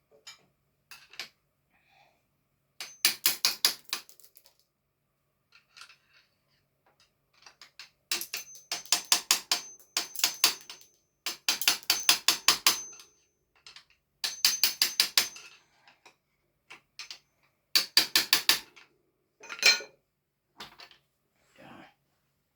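Ratchet mechanism clicking rapidly in repeated bursts of one to two seconds, about ten clicks a second, with scattered single metal clicks between the bursts.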